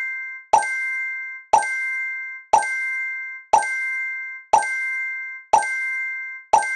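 Countdown timer sound effect marking each second: a sharp pop followed by a ringing chime tone that fades just before the next one, seven times at an even once-a-second beat.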